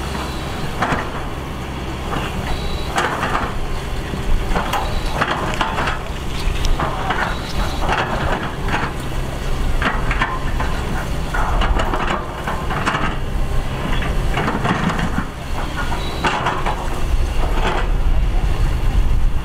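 Shantui ME210LC-1 crawler excavator's diesel engine running steadily under load, with irregular rasping bursts over it as the bucket works the soil bank.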